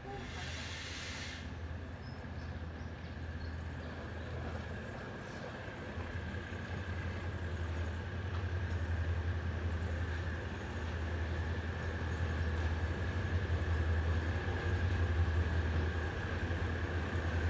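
Diesel-hauled passenger train crossing a timber viaduct: a steady low hum of engine and wheels that grows louder over the second half as the train approaches. A brief hiss comes about a second in.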